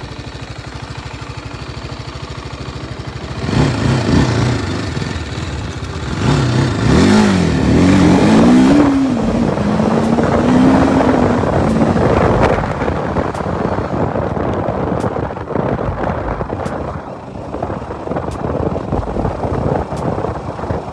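TVS Apache RTR 310's 312 cc single-cylinder engine, heard on board while riding. It runs at low revs, gets louder about three seconds in, then its pitch rises and falls several times as the throttle is worked, before settling into a steady run with rushing wind noise.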